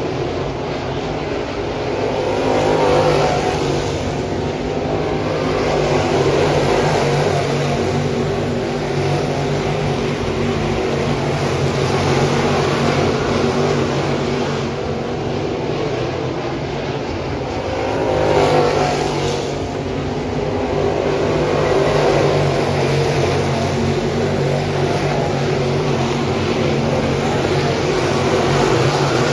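Dirt-track crate late model race cars running laps, their V8 engines blending into one continuous engine sound that swells several times as cars pass by.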